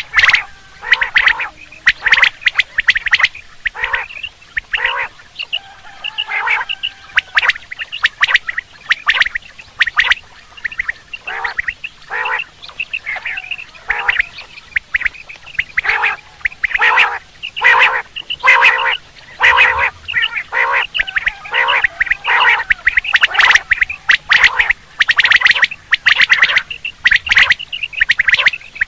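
Quail calling over and over: short, sharp calls repeated in quick runs, the kind of quail call recording played to lure quail in hunting season.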